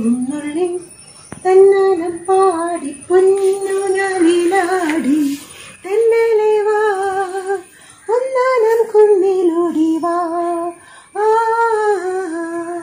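A woman singing a Malayalam Onam song solo, without audible accompaniment, in long held notes and phrases with short pauses between them.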